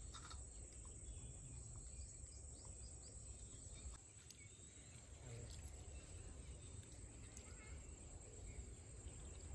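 Faint outdoor ambience: a steady high insect drone over a low wind rumble, with a few faint clicks of snail shells being rubbed by hand in a steel bowl of water.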